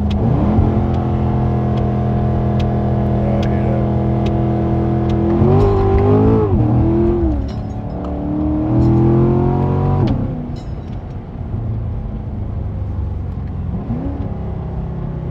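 C7 Corvette's V8 accelerating in track mode: the engine note climbs and holds steady, rises and drops with gear changes about five and eight seconds in, then runs quieter before climbing again near the end.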